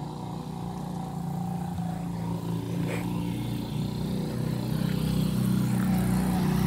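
A motor vehicle's engine running at low, steady revs, growing gradually louder.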